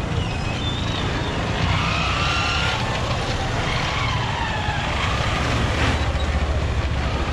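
Busy street traffic: a steady low rumble of vehicle engines, with short faint higher tones scattered over it.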